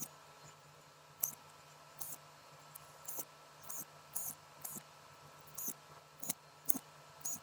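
Irregular light, sharp clicks, about a dozen over several seconds, from handling and working on a laptop during repair. They sit over a steady faint hum.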